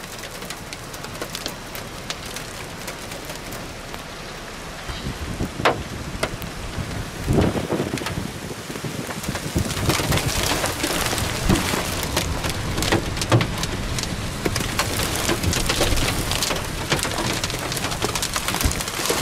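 Rain falling hard, with many sharp taps of drops striking a surface; it grows louder about seven seconds in.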